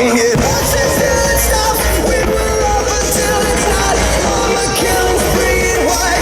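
A pop song with singing played over outdoor loudspeakers; a steady low bass comes in about half a second in.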